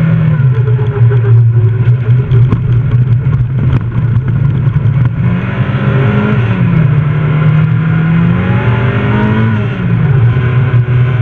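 Fiat Seicento rally car's engine under hard driving, heard from inside the cabin: steady at first, then the revs climb and fall twice in the second half and drop sharply near the end with a brief dip in loudness as the throttle comes off.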